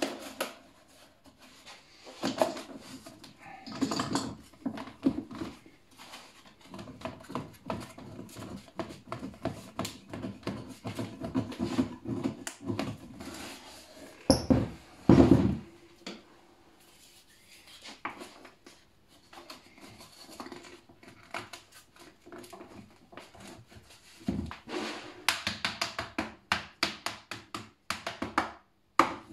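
Wood being handled on a workbench: scattered clicks, taps and scrapes as a thin wooden strip is fitted into a plywood drum-shell jig. About halfway there is a louder cluster of knocks and scraping, and near the end a quick run of taps.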